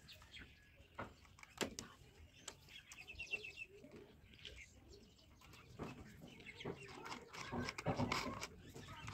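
Faint clicks and clinks of small metal parts and the angle grinder's head being handled, loudest near the end, with a quick run of bird-like chirps in the background a few seconds in.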